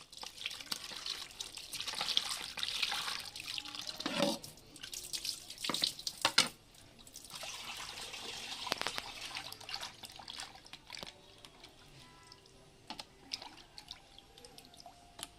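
Water running and splashing while fish is washed by hand, in two stretches, then a few scattered drips and small knocks.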